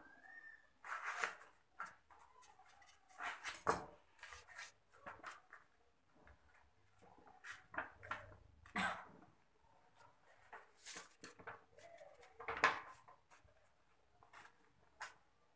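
Stiff paper pattern pieces rustling as they are handled and trimmed with tailor's shears, in short, irregular rustles and snips.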